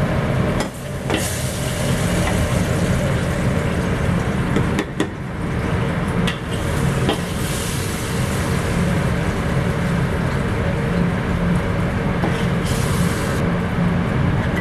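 A kitchen exhaust fan runs with a steady droning hum and hiss. A few light clicks of a utensil against the pan come through it.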